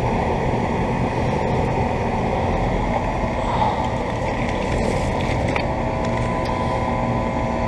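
Outdoor condenser units of two central air conditioners, a York and a Guardian, running together: a steady fan rush with a steady hum underneath.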